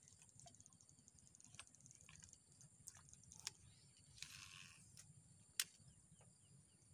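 Near silence outdoors: a faint steady high-pitched insect drone, with rapid ticking over the first two seconds. A few soft clicks, a brief rustle about four seconds in and one sharp click a little later.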